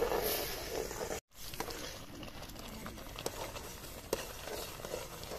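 Metal spoon stirring bread halwa in an aluminium kadai: the bubbling mixture of ground bread, sugar syrup and ghee sizzles for about a second, then the sound drops out briefly. After that the thickened halwa is stirred, with scattered clicks and scrapes of the spoon against the pan.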